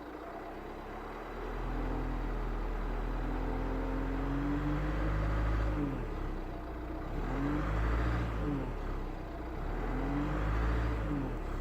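Renault Scénic's 1.6 dCi 130 four-cylinder turbodiesel, cold, revved from idle. It rises about a second in and holds for several seconds, drops back, then is blipped up and down twice. The owner is checking a noise the engine makes when accelerating from cold.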